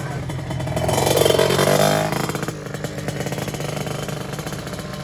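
Two-stroke sport-class drag motorcycle engine running, revved up once about a second in for a little over a second, then dropping back to a steady, crackling idle.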